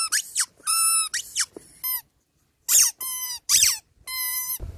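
Squeaky toy eggs squeezed by hand: a quick series of high squeaks, some held steady and some falling in pitch, with a short break about two seconds in.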